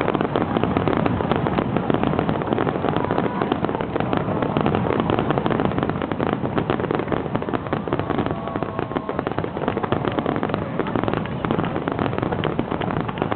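Fireworks finale: a dense, unbroken barrage of shell bursts and crackling, the reports coming too fast to count.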